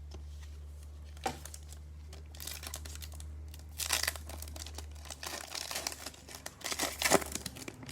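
Foil trading-card pack wrapper being torn open and crinkled by hand, in irregular crackling spurts, with a single click about a second in.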